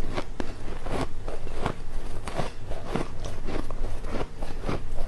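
Teeth biting into white ice close to the microphone: a quick, irregular run of sharp crunches, several a second.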